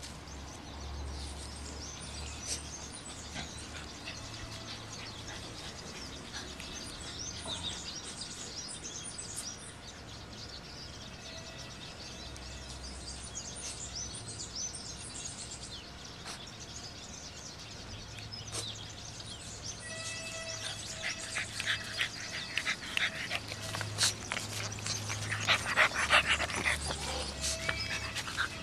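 Outdoor ambience with birds chirping. In the last several seconds comes a run of short, louder noisy sounds close to the microphone from an English bulldog puppy.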